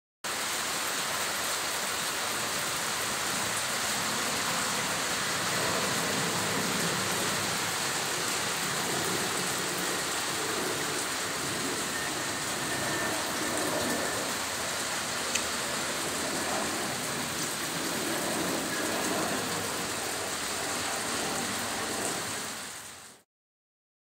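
Heavy rain falling steadily, with a single sharp tick a little past halfway. The sound cuts in abruptly and fades out near the end.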